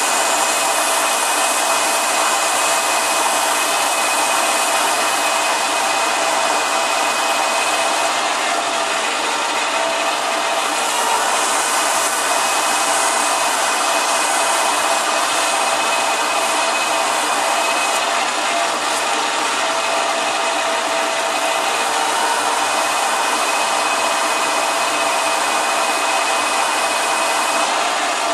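Metal lathe running steadily with a faint motor whine while a metal ferrule spinning in the chuck is polished by hand with a strip held against it, giving a rough rubbing hiss.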